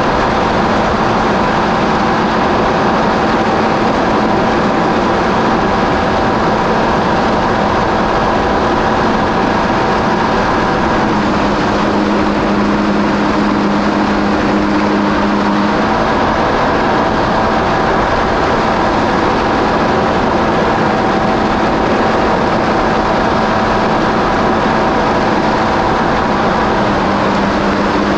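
Engine of a 2017 Kawasaki SX-R 1500 stand-up jet ski, its four-stroke inline four, running steadily under way, with wind and water rushing past. Its note shifts for about five seconds in the middle, then settles back.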